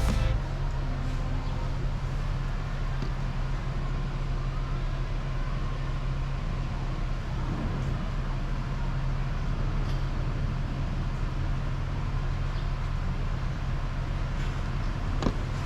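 Small Honda Gyro scooter engine idling steadily, with an even low running note. The engine is low on compression and makes an abnormal noise.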